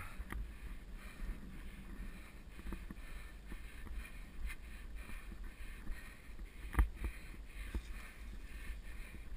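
Mountain bike rolling along a dirt singletrack: a steady low rumble from the tyres and frame, with light rattles and knocks over bumps and one sharp knock about seven seconds in.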